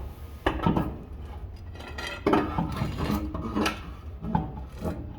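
Steel pry bar clanking and scraping against the wheel and tire as it levers the wheel up onto the hub studs, in a string of irregular metallic knocks and rubs.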